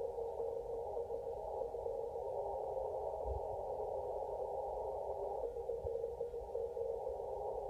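Morse code (CW) signals on the 160-metre band coming from a Kenwood TS-850SAT transceiver: a steady jumble of overlapping keyed tones mixed with band noise. A narrow receive filter squeezes it all into a thin, narrow pitch range.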